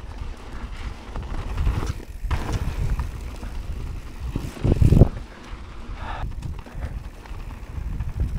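Wind buffeting the microphone as a mountain bike rolls fast down a sandy dirt trail, with the low rumble and rattle of the tyres and bike over the ground. The buffeting surges unevenly, loudest about five seconds in.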